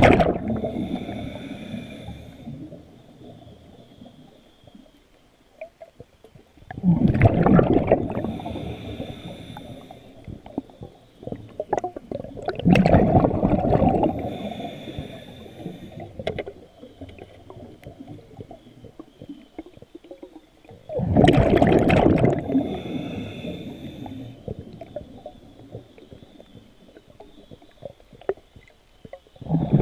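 A diver breathing underwater through a scuba regulator: a rumbling rush of exhaled bubbles about every seven seconds, each followed by a thin hissing whistle from the regulator.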